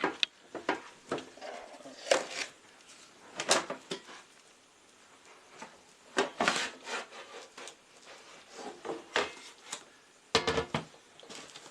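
Irregular knocks, clicks and rubbing as a Ninja Foodi two-basket air fryer and its packaging are handled, with a quick cluster of knocks near the end.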